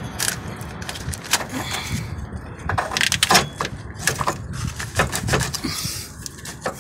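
Irregular clicks, taps and knocks of a hand handling metal parts of a car's front suspension, over a low rumble.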